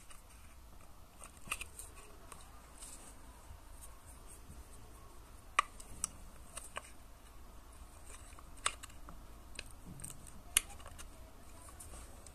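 Scattered sharp clicks and taps, about half a dozen, from an Mlife 120S vape box mod being handled, over a faint low hum.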